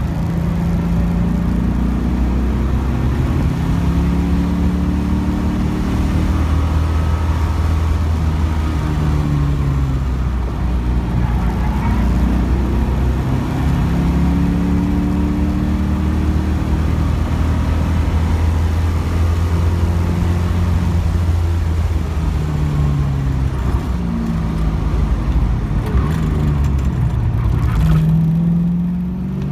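A 1975 Pontiac Trans Am's V8 engine heard from inside the cabin at track speed, its pitch rising under acceleration and dropping back several times as it shifts and slows for corners.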